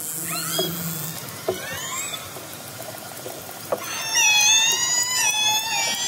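Orca calls recorded underwater by hydrophone: a few short rising whistles and scattered clicks in the first two seconds, then from about four seconds a loud, long pulsed call with many stacked harmonics that waver slightly in pitch.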